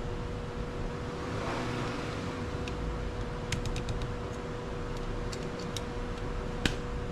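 Scattered light metallic clicks of an Allen wrench turning the screws of a boat steering wheel, with one sharper click near the end, over a steady hum.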